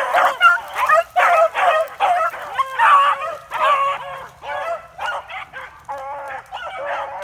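A pack of beagles baying and yelping on a rabbit's scent, several voices overlapping. The cries are loudest and thickest in the first few seconds and thin out after about four seconds.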